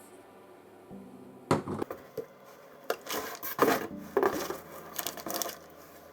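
Chainsaw packaging and parts being handled: a run of sharp knocks, clatters and rustles lasting about four seconds, starting a second and a half in.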